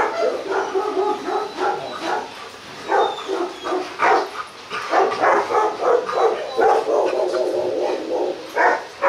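Dogs barking loudly and repeatedly, in a rapid run of short barks with a longer drawn-out call partway through.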